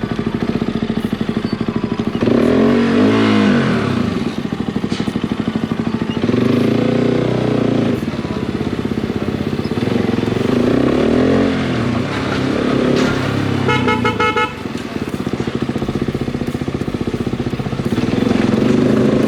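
Motorcycle engines idling, with a bike revved up and back down four times. A vehicle horn sounds briefly in short pulses a little past the middle.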